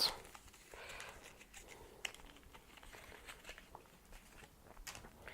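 Faint crinkling and a few light clicks of plastic packaging being handled as a thermal paste syringe is worked out of it.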